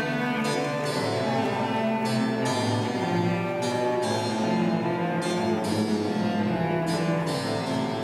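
Solo cello playing a classical piece with a small string orchestra accompanying, in sustained bowed notes.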